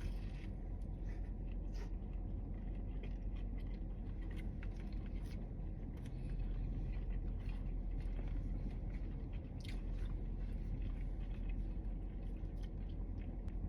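Biting into and chewing a fish fillet sandwich with lettuce, with scattered small crunches and mouth clicks over a steady low hum.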